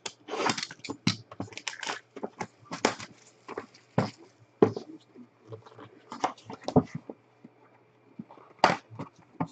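Hands handling and opening a cardboard trading-card box: irregular clicks, taps and scrapes of cardboard and plastic, with short rustles.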